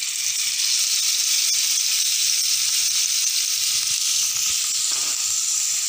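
Cubes of paneer sizzling in a little hot oil in a non-stick kadai, a steady frying hiss that cuts off suddenly at the end.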